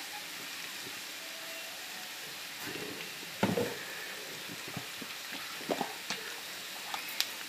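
Tuhau and rattan shoots stir-frying in a wok with a steady light sizzle, broken by a few scrapes and knocks of the spatula turning them, the loudest about three and a half seconds in.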